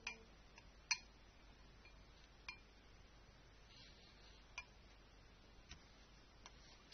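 Scattered light clicks and clinks of a hard object, about six in seven seconds, the loudest about a second in, over faint room hiss.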